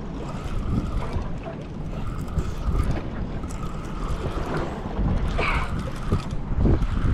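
Wind buffeting the microphone over water sloshing against a small fishing boat's hull, with a brief louder rush about five and a half seconds in.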